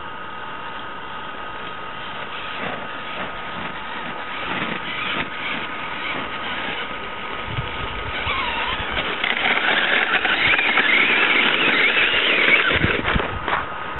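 Small RC crawler's electric motor and gears whining as it drives over snow, growing louder in the second half as it comes close. A few low thumps, one about halfway through and more near the end.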